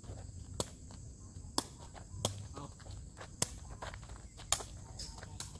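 A woven sepak takraw ball being kicked back and forth, a sharp slap from foot on ball about once a second, six kicks in all.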